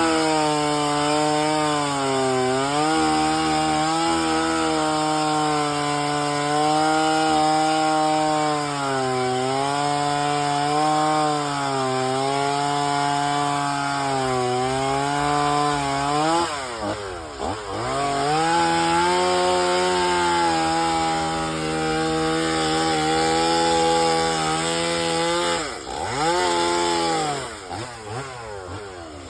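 Chainsaw running and cutting into wood, its engine pitch wavering up and down as the chain bites. The throttle drops off and revs back up about sixteen seconds in, and twice more near the end.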